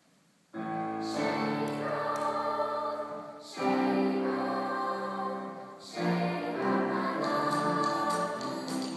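A children's choir singing, with piano accompaniment. The singing comes in suddenly about half a second in, out of near silence, and goes on in phrases with brief dips between them.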